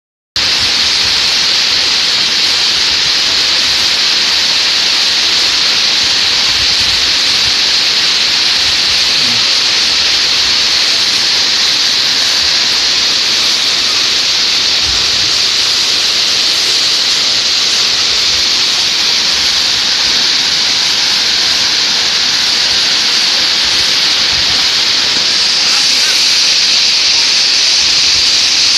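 Waterfall pouring over rock ledges into a shallow pool: a steady, loud rush of falling and splashing water.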